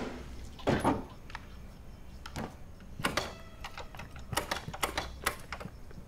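Scattered mechanical clicks and knocks from a Honda Activa scooter being handled, with a louder knock just under a second in and a quick run of clicks near the end.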